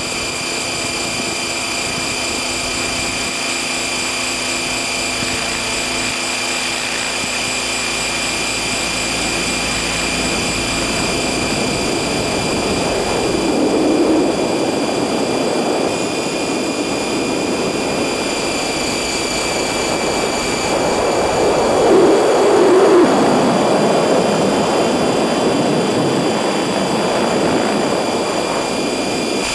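Stretched Align T-REX 600 electric RC helicopter (12S brushless motor, 690 mm blades) in flight, heard from a camera slung under it: a steady high motor and gear whine over continuous rotor noise. A broader rushing noise swells twice, about halfway through and again about three quarters of the way through.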